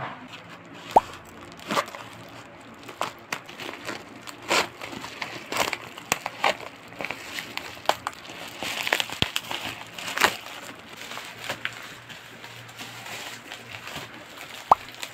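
Plastic mailer and bubble-wrap packaging crinkling and rustling as a parcel is cut open with scissors and unwrapped, with many short crackles. There is a sharp click about a second in and another near the end.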